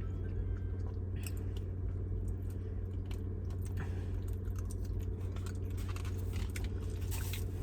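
Close-up chewing and biting of food, with many short wet clicks and crunches, over the steady low hum of an idling car engine.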